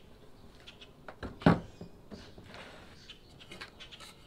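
Handling knocks at a workbench: a router is set down on the plywood bench top with one heavy thump about a second and a half in. Lighter clicks and taps of tools and a plywood template come before and after it.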